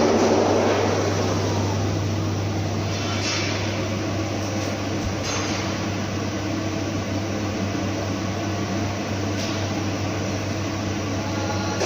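CNC plasma cutting machine at work: a steady low electrical hum with an even hiss over it. It eases slightly about a second or two in, then holds level.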